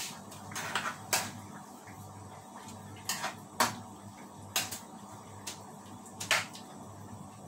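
Metal spoon clinking and scraping against a stainless steel frying pan while stirring soup: about half a dozen sharp clinks at uneven intervals, over a faint steady low hum.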